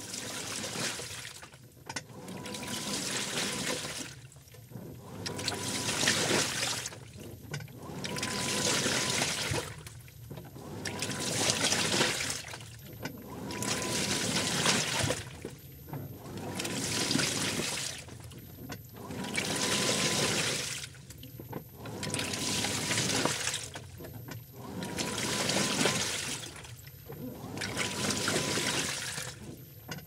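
Washing machine on its wash cycle: water and clothes slosh in the turning drum in surges about every three seconds, each followed by a short pause as the drum stops and reverses. A faint, very high electronic tone sounds briefly in each pause.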